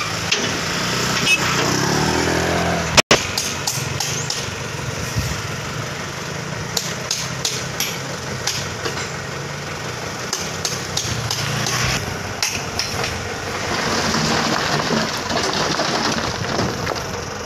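Diesel engine of a loaded dump truck running as it manoeuvres, with many sharp clicks and knocks scattered over the engine noise through the middle, and a brief dropout about three seconds in.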